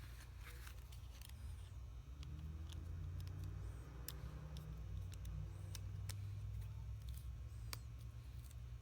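Scattered light clicks and taps of small parts being handled during a smartphone repair, over a steady low hum that grows louder about two seconds in.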